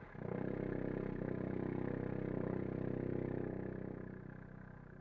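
Solo trombone holding one low note with a rapid flutter through it. The note starts suddenly, stays loud for about three seconds, then fades away near the end.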